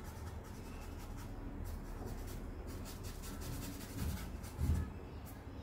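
Charcoal stick scratching across drawing paper in quick back-and-forth strokes, shading and hatching. Two dull thumps come about four seconds in.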